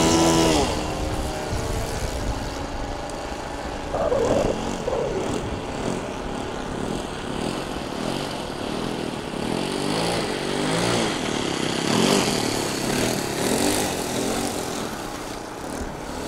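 Radio-controlled model airplane engines, among them the Phoenix Model Spacewalker II's ASP 61 four-stroke glow engine, droning in flight overhead. Their pitch rises and falls as the planes pass and change throttle.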